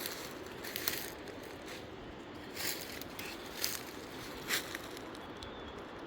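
Footsteps crunching through dry undergrowth off-trail, a step roughly every second.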